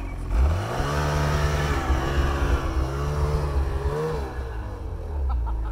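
Snowmobile engine revving up, holding a steady high pitch with a brief dip midway, then easing off a little past four seconds.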